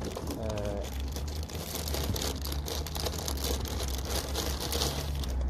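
Packaging crinkling and rustling as a pair of cricket pads is handled and taken out of its wrapping.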